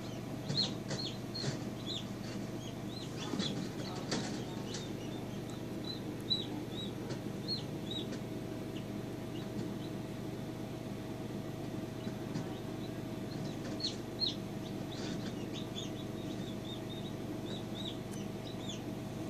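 Newly hatched chicks peeping: many short, high cheeps that fall in pitch, coming in clusters with a quieter lull midway, over a steady low hum.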